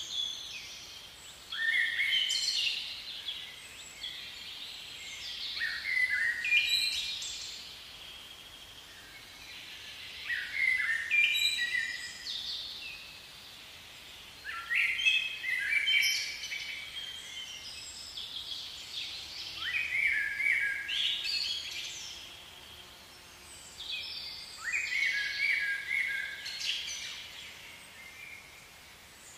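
A songbird singing short phrases of falling, stepped notes, repeated about every four to five seconds over a faint steady background hiss.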